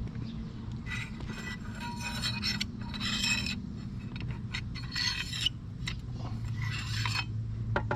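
Metal parts of an outboard water pump scraping and rubbing against each other in short strokes, about five times, as the pump is taken apart. A steady low hum runs underneath.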